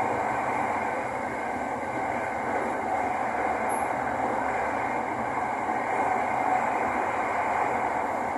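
Steady running noise of an SRT Light Red Line electric commuter train, heard from inside the passenger car as wheels rumble on the rails at speed.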